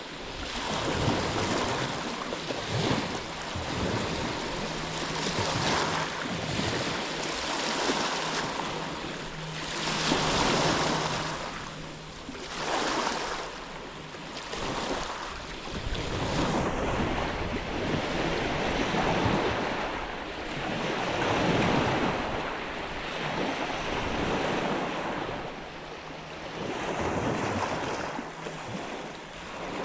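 Ocean waves washing ashore, the surf swelling and ebbing every few seconds.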